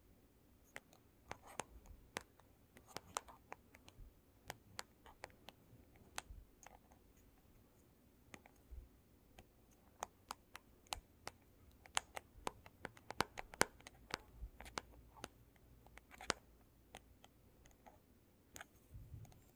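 Long fingernails tapping and scratching on a glossy black surface: irregular sharp clicks, a few a second and thickest in the second half, mixed with short scrapes.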